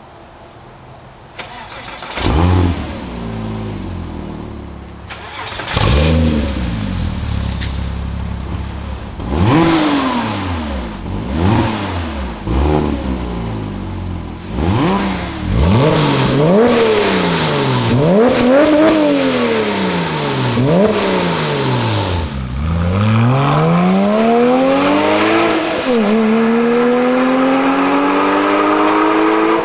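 Porsche Cayman S 3.4-litre flat-six engine and exhaust, heard stock and with an AWE Tuning stainless catback, revved in a series of sharp throttle blips that rise and fall. A quick run of revs follows in the middle. Near the end comes a long, steady climb in revs with a brief dip before it rises again.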